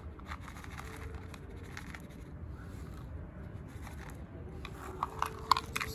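Dry cat kibble tipped from a plastic cup onto concrete, the small pellets clicking, while a cat starts crunching the food. A quick run of sharper clicks comes near the end.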